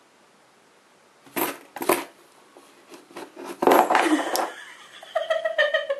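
Coins clicking and scraping on cardboard as a cat's paw drags 10-yen coins in through a hole in a cardboard box: two sharp clicks, then a longer scrape about halfway through. A short burst of a person's voice comes near the end.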